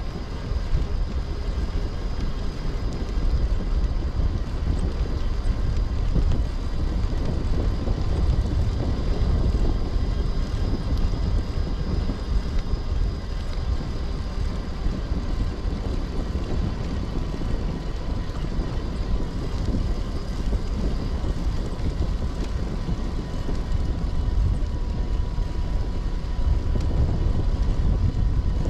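Wind buffeting a GoPro microphone: a steady, gusty low rumble, with a faint steady high whine underneath.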